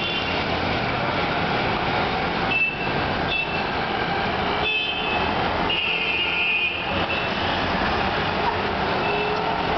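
Steady road traffic noise with vehicle horns sounding several short times, the longest honk lasting about a second around six seconds in.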